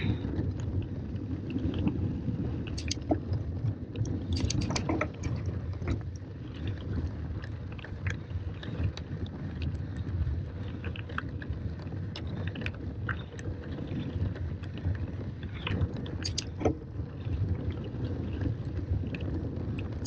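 Tandem mountain bike descending dirt singletrack: a steady low rumble of the ride, with scattered clicks and rattles from the bike throughout.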